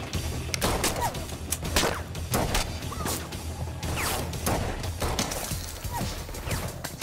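Film gunfight: about a dozen scattered gunshots, irregularly spaced, over a low, steady music score.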